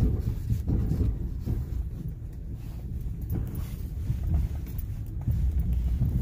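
Pickup truck driving slowly over a snowy, rutted dirt track: a steady low rumble of engine and tyres, with scattered knocks from the uneven ground.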